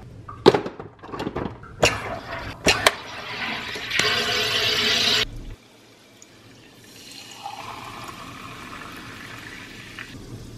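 SodaStream carbonator making sparkling water: several clicks and knocks from the machine, then a loud hiss of CO2 being injected into the bottle that cuts off suddenly about five seconds in. After a short gap, a softer fizzing as the carbonated water is poured into a glass.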